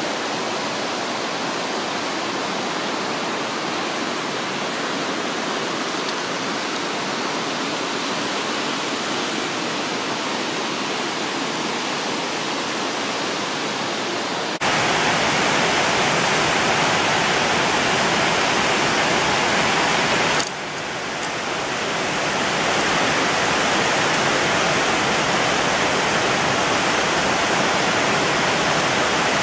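A steady rushing noise with no tones in it, like falling water or wind. It jumps louder abruptly about fifteen seconds in, dips suddenly about twenty seconds in and swells back over a couple of seconds.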